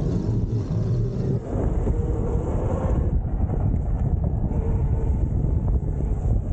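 Wind buffeting the microphone while an e-bike is ridden over rough ground, with steady rumbling noise and a faint motor whine that rises and falls in pitch.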